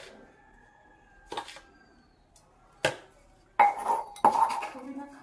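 A wooden pestle knocking and grinding inside a metal bowl. A few light knocks are followed, from just past halfway, by several loud strikes that set the bowl ringing.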